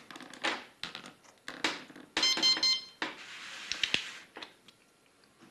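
Plastic handling noise and clicks as an infusion bag is spiked. About two seconds in, a CADD Prizm ambulatory infusion pump gives a quick run of about four short electronic beeps.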